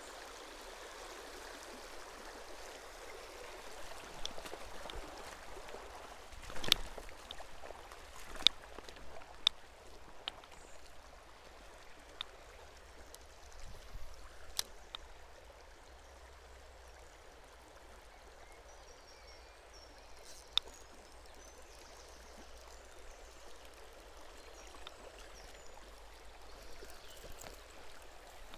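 Shallow stony river running over a riffle, a steady rush of water. A few sharp clicks are scattered through it, the loudest a quarter and a third of the way in and again around two-thirds of the way.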